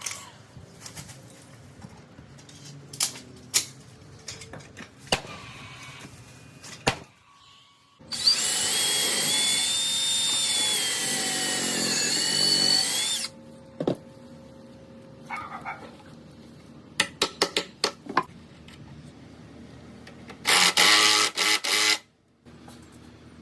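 Power drill running in two loud bursts. The first lasts about five seconds, its pitch sagging and rising under load. The second, shorter burst comes near the end. Scattered knocks and clicks come between the two.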